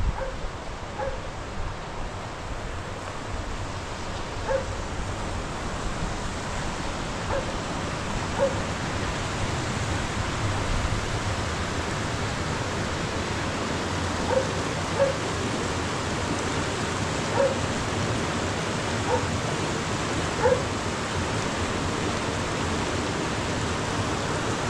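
Steady rain falling, an even hiss, with a dog barking in short yelps a dozen or so times, often two close together.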